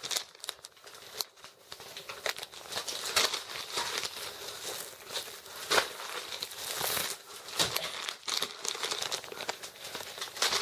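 Plastic crinkling and rustling with scattered sharp clicks: packets of soft-plastic fishing lures and tackle being handled and sorted.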